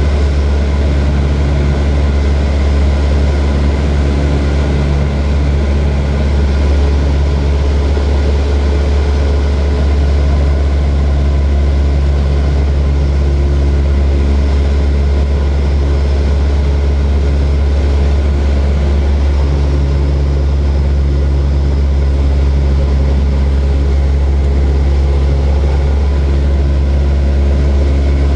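Small propeller airplane's engine running with a steady, loud low drone.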